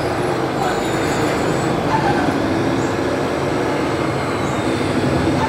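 Steady engine-like rumble with a low hum, even in level throughout.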